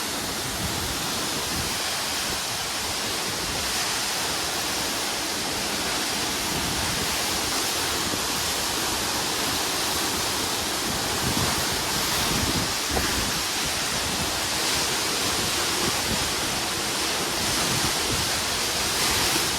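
Waterfall crashing close by: a steady, unbroken rush of falling water, heard from near enough that its spray reaches the face.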